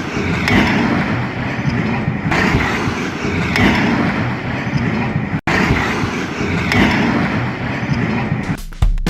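A vehicle engine running against a noisy background, broken by a sudden dropout about five and a half seconds in. Music begins near the end.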